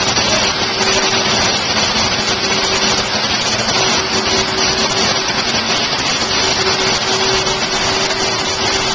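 Restoration machinery running steadily: a loud, even mechanical noise with a constant hum under it.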